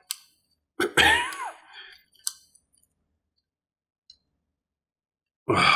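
A few small sharp metal clicks from a Colt Model 1908 Vest Pocket .25 pistol being worked by hand for takedown, its slide eased back slightly. About a second in comes a short vocal noise from the man working it, and speech starts near the end.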